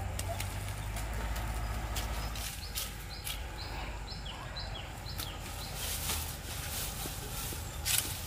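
A small bird chirping a quick run of about six short, high, slightly falling notes. Under it are a steady low rumble and scattered sharp knocks.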